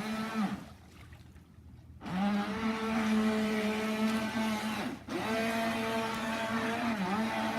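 Traxxas RC boat's electric motor whining at a steady speed. It cuts out about half a second in, comes back about two seconds in, and dips briefly again about five seconds in as the throttle is let off and reapplied.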